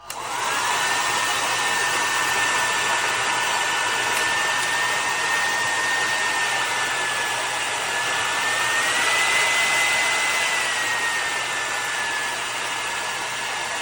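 CONFU 1600W ionic hair dryer switched on: its motor spins up to a steady whine over a rush of air. The pitch rises a little about nine seconds in and settles back a couple of seconds later.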